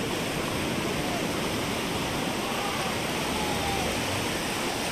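Steady wash of surf on a sandy beach, with faint distant voices of people drifting through it.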